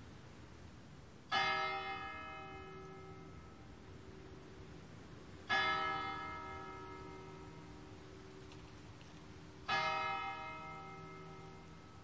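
A single church bell tolling slowly: three strikes about four seconds apart, each ringing on and fading slowly.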